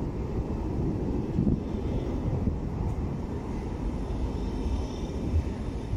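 Low-floor electric tram running past at close range: a steady low rumble of wheels on the rails, with a faint high whine over it.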